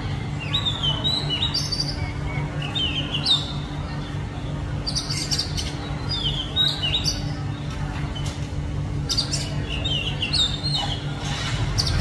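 Oriental magpie-robin singing: several short phrases of quick, varied notes with brief pauses between them, over a steady low hum.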